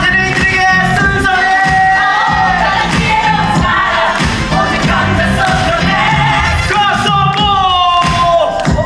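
A live musical-theatre song: a singer holding long notes with vibrato over band accompaniment with a steady beat.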